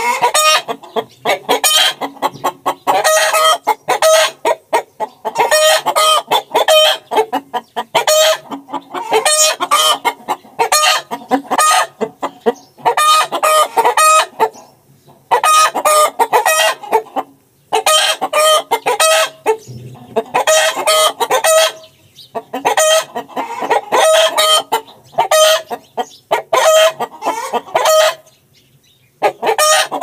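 Rooster and hens calling almost without a break: clucking and cackling in quick runs of notes, with crowing mixed in and a few short pauses.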